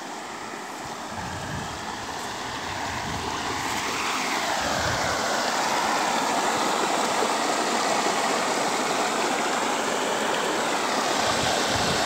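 Muddy floodwater rushing and splashing over rock ledges in a small creek cascade, a seasonal creek running full after rain. The rush grows louder over the first several seconds and then holds steady.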